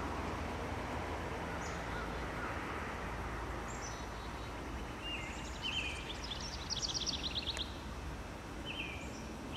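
Wild birds chirping several times over a steady outdoor background hiss with a low rumble, including a quick trill about seven seconds in.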